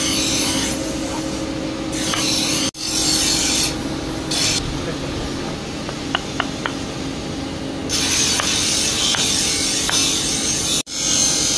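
A wooden handle being twisted and forced onto a hot bolo tang, the wood rasping and scraping against the metal in repeated bursts about a second long. A steady low hum runs underneath.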